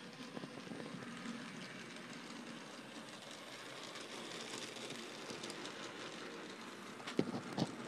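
Thomas-set model train running on DC power around the track, a steady noise of its wheels and motor, a little louder as the coaches pass close about four seconds in. Two sharp clicks near the end.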